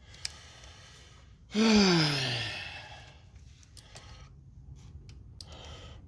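A man's loud sigh, falling in pitch, about a second and a half in, followed by faint clicks and rustles of handling.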